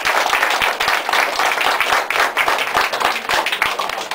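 A small crowd applauding, many hands clapping at once, the applause dying away right at the end.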